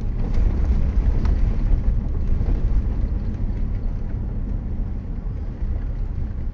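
A car driving on a gravel road, heard from inside the cabin: a steady low rumble of tyres and engine, with a couple of light ticks in the first seconds.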